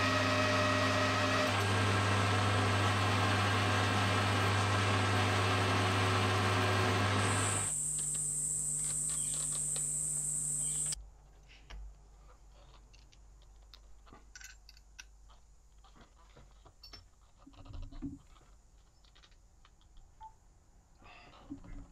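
Metal lathe running, a steady motor and gear hum, while a single-point tool cuts an aluminium part. About eight seconds in the sound changes to a higher whine. It cuts off suddenly about three seconds later, leaving faint small clicks.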